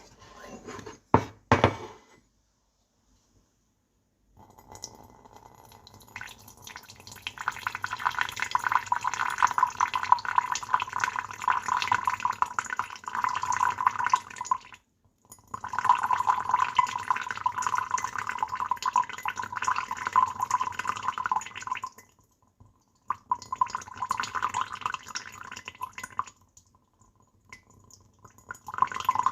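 Water poured in a steady stream into a vessel for tea, in pours several seconds long separated by short breaks. A few sharp clinks come just before the first pour.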